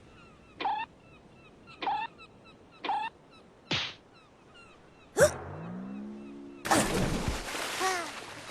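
Cartoon sound effects: three short squeaky falling blips about a second apart, a quick swish, then a twangy pitched tone, followed near the end by a hissing rush of noise with falling whistles, over faint bird chirps.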